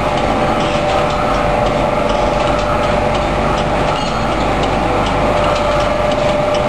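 Automatic tea-bag packing machine (thread-and-tag type) running: a steady mechanical clatter of many rapid ticks over a steady whine.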